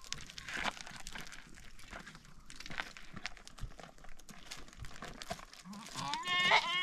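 Scattered crunching and rustling clicks, then near the end a sheep bleats once, a wavering call that rises in pitch.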